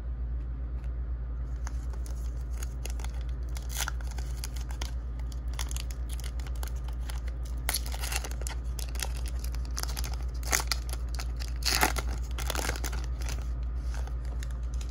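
Foil wrapper of a Donruss Optic trading-card pack crinkling and tearing as it is ripped open by hand, in short scattered rustles that are loudest toward the end. A steady low hum runs underneath.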